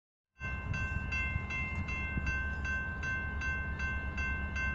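Railroad grade-crossing warning bell ringing at an even pace, about two and a half strikes a second, as the crossing gates lower. A low rumble runs beneath it.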